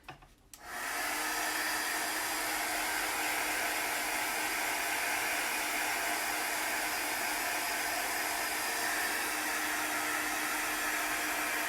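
Handheld blow dryer switched on about half a second in and blowing steadily, a rush of air with a faint steady hum under it, drying freshly applied paint on a craft project.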